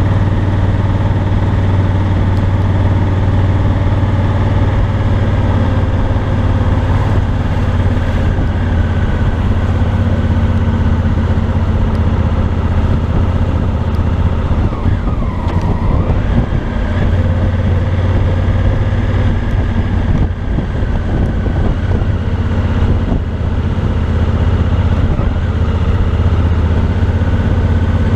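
Parallel-twin engine of a 2018 Honda Africa Twin Adventure Sports running at low, steady revs while the bike is ridden slowly, its exhaust note dominating. A short sound dips in pitch and rises again a little past the middle.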